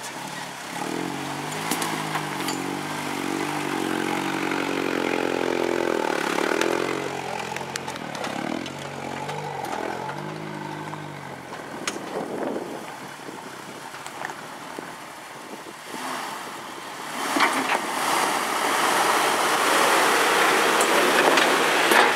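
A 1980s Toyota 4Runner's engine revving and labouring as it climbs a rocky trail, its pitch rising and falling with the throttle. About 17 s in a louder rushing noise takes over as a Jeep Wrangler TJ passes close by.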